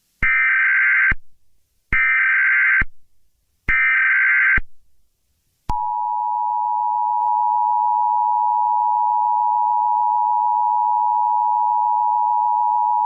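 Emergency Alert System header: three short bursts of SAME digital data tones, each just under a second long and evenly spaced. About six seconds in, the EAS two-tone attention signal starts and holds steady.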